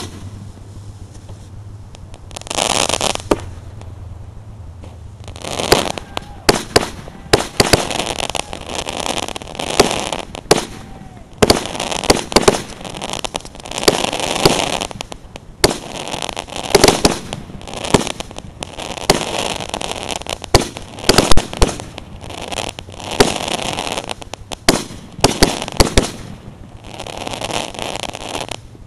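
A tube firework about three feet high firing repeatedly: a first hiss about two and a half seconds in, then from about five seconds a long string of hissing bursts with sharp cracks and pops.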